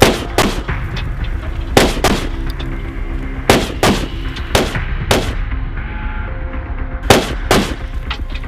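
Rifle shots, about ten, mostly in quick pairs spread across several seconds, each sharp and ringing, over background music.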